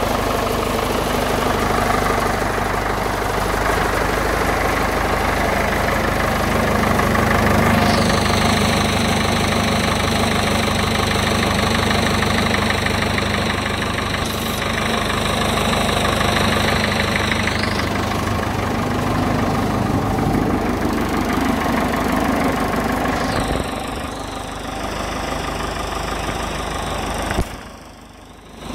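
Someca 715 farm tractor's diesel engine idling steadily. A faint high whine sits over it at times, and the engine sound drops away briefly just before the end.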